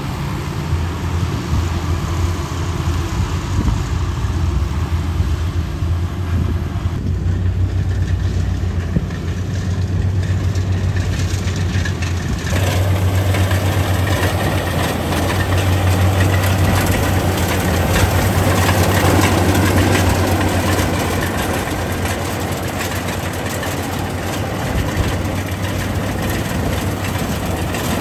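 Kubota ProDex rice combine harvester's diesel engine running steadily as the machine cuts rice, with a constant low hum. About twelve seconds in the sound turns fuller and louder.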